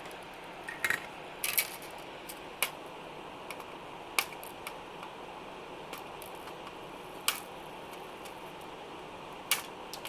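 Sharp, irregular clicks and snips from small hand tools handling resistors and their leads on a tube amplifier kit's circuit board, about half a dozen in all, over a steady background hiss.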